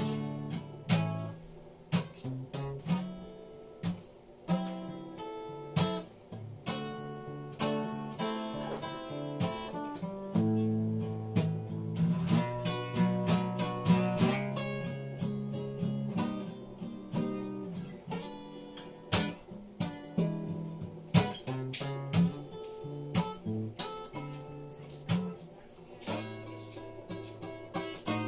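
Acoustic guitar being played, picked notes and strummed chords ringing out, with a fuller, louder passage about halfway through.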